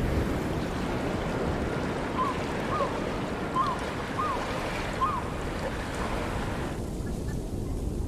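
Steady rushing of wind and lapping water at a lake shore, with a bird giving five short calls in the middle. The higher hiss drops away near the end.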